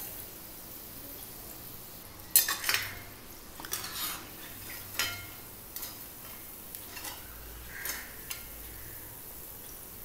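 A metal perforated skimmer scraping and clinking against the kadai as it turns and lifts bondas, over the faint steady sizzle of deep-frying in hot oil. The clinks come about eight or nine times, the loudest a little over two seconds in.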